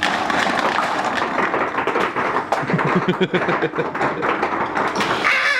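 Dye DAM paintball marker's trigger pulled repeatedly while its board signals the Dye Box Rotor loader to feed: a continuous, dense rattle and clatter of the loader running and paintballs being pushed through and spilling out.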